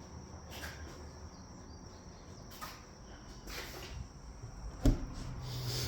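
Quiet surroundings with a faint steady high-pitched tone, a few soft clicks and one sharper knock about five seconds in, followed by a low steady hum.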